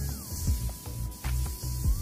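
Electronic background music with a steady heavy bass beat and a held synth tone that slides down in pitch, then back up near the end.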